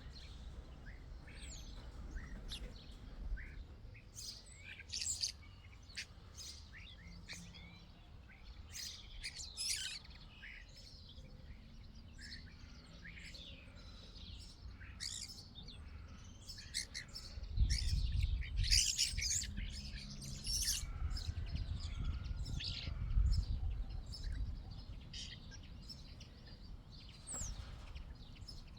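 Small songbirds chirping and singing, many short high calls and trills in quick succession. A low rumble runs underneath and swells for several seconds past the middle.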